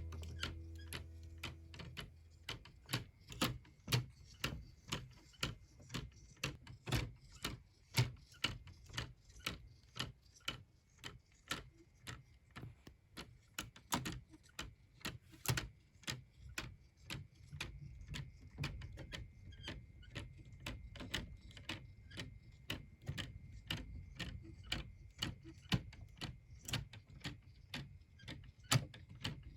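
A handmade mechanical clock ticking steadily, its escapement clicking a few times a second.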